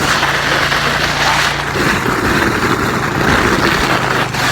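A small engine running steadily under a loud rushing noise. Its low hum drops slightly in pitch about two seconds in.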